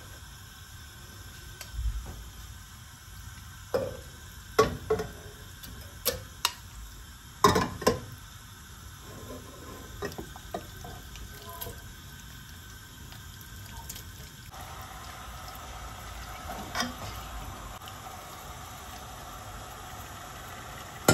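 Kitchen cooking sounds: a utensil knocks and clinks against a pot about ten times, over a steady hiss that thickens a little about two-thirds of the way through.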